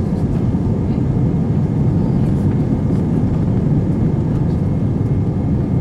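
Airbus A320 jet engines at take-off power, heard from inside the cabin: a steady, deep roar with a faint steady whine above it, as the airliner lifts off and climbs.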